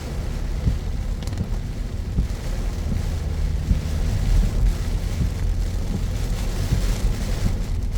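Car driving on wet city roads in heavy rain: a steady low rumble of road and engine noise under an even hiss of rain and water from the tyres, with a few faint ticks.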